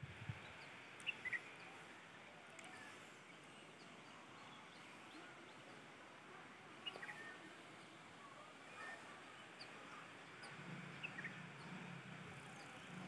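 Faint outdoor ambience with scattered short bird chirps.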